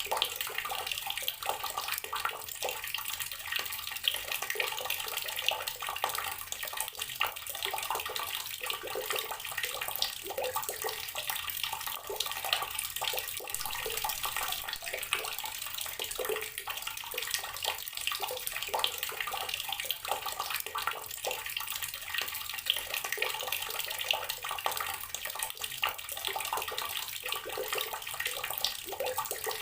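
Tap water pouring steadily into a filled container, a continuous splashing rush of water hitting water.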